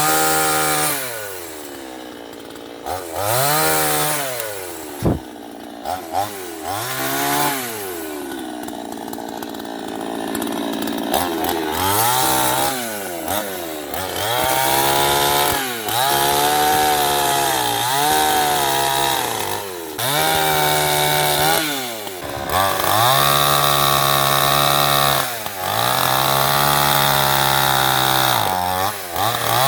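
Chainsaw cutting through tree wood, its engine revving up and falling back again and again, with a sharp knock about five seconds in.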